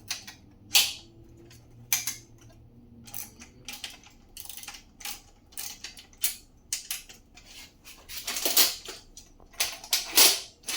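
Irregular clicks and clanks of parts and hand tools being handled while a utility cart is assembled, with a few longer, louder scraping rattles near the end.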